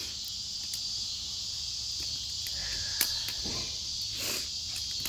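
Steady, high-pitched chorus of chirping insects, typical of crickets at dusk, with a few faint clicks about three seconds in.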